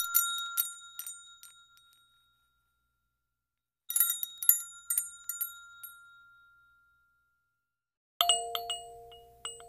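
High, bright chimes tinkling in two clusters of quick strikes, each ringing out and fading over a couple of seconds, with silence between. About eight seconds in, denser chiming over held lower notes begins, like the start of a melody.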